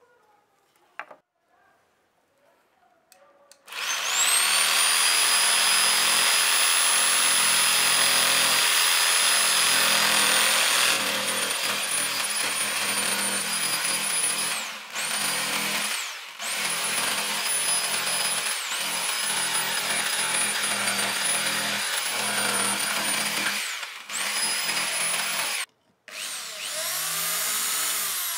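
Electric jigsaw cutting a thin wooden knife-handle scale, running steadily with a high motor whine and several short breaks. Near the end a cordless drill spins up, rising in pitch, to drill through the wood.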